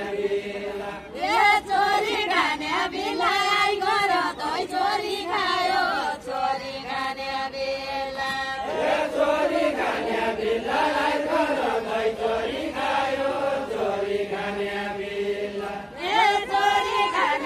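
Unaccompanied deuda folk song of far-western Nepal: several voices chanting it together in long, wavering phrases. New phrases start about a second in, around six and nine seconds, and near the end.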